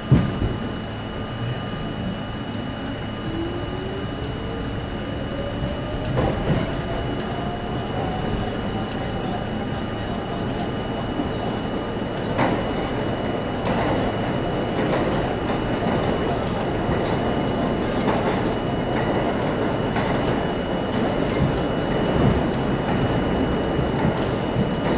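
New York City Subway C train pulling out of a station and picking up speed through the tunnel. A whine climbs steadily in pitch over its first several seconds. Under it runs a steady rumble of wheels on rail, with sharp clacks now and then.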